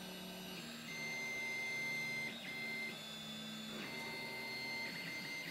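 Fabrikator Mini v1.5 3D printer running, fairly quiet: its motors whine in several steady tones that jump to new pitches every second or so as the moves change.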